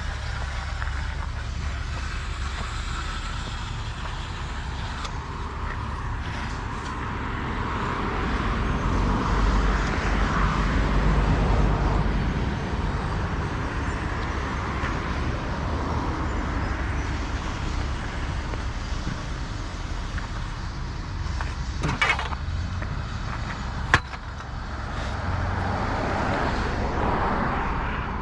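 Road traffic passing close by: a steady rush of cars with low engine rumble, swelling as vehicles go past twice. There are two sharp clicks late on.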